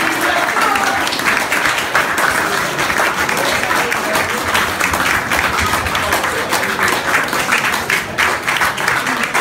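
A roomful of people applauding: dense, steady clapping from many hands.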